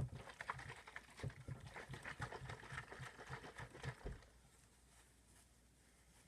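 A bottle of water and G Fuel drink powder being shaken by hand to mix it: rhythmic sloshing and knocking, about four shakes a second, which stops about four seconds in.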